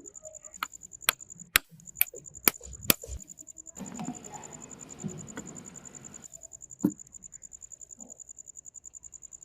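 Insect chirping steadily at a high pitch, with a string of sharp knocks in the first three seconds, a few seconds of rough rustling or scraping in the middle, and one more knock near the end.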